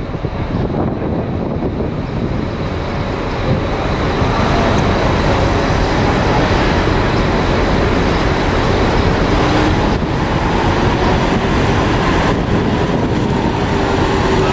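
Diesel engine of a Mercedes-Benz OH 1626 coach running as the bus moves across the terminal and comes toward the listener, a steady low rumble that grows louder about four seconds in.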